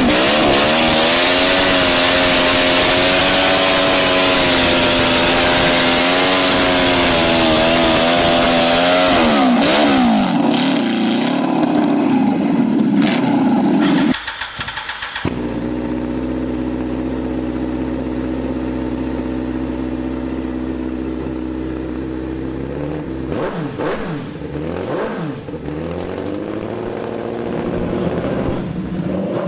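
Small-vehicle engines running hard at high revs, the pitch rising and falling as the throttle changes. About fourteen seconds in, the sound cuts to a different engine with a lower, steadier note, which rises and falls again near the end.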